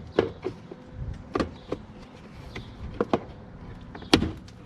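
Plastic cover panel of a portable washing machine being handled and removed: a scatter of sharp plastic clicks and knocks, the loudest about four seconds in.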